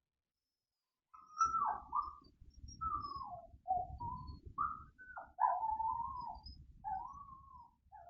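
A dog whining: a run of about eight short, high cries that bend up and down in pitch, starting about a second in, with low rumbling handling noise underneath.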